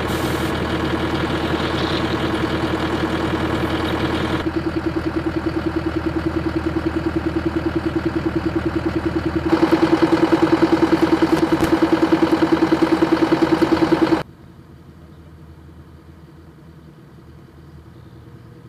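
Military armoured vehicle's diesel engine idling with a steady, even throb. It gets louder for a few seconds past the middle, then drops off suddenly to a much quieter low rumble.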